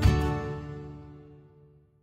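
A chord struck on a digital piano and left to ring, fading away over about two seconds.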